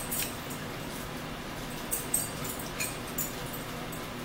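Eating at a table: a few short, sharp smacks and clicks of chewing and cutlery, over a steady hum from an electric fan.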